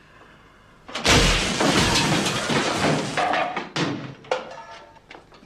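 Electrical blast sound effect from an overloaded field generator: a sudden loud bang about a second in, then a couple of seconds of crackling, hissing discharge that dies away with a few sharp cracks.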